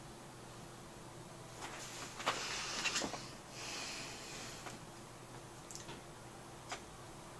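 Rustling of denim overalls being handled, with a few sharp clicks, from about two seconds in until nearly five seconds in.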